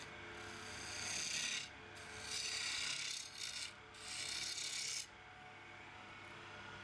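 Hand-held turning chisel cutting a spinning oak spindle on a lathe: three cuts of about a second each, the last ending about five seconds in, over a low steady hum that is left on its own afterwards.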